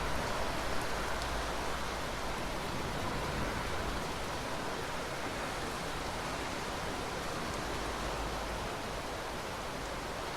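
Steady rain hiss, with a low rumble of thunder underneath that dies away near the end.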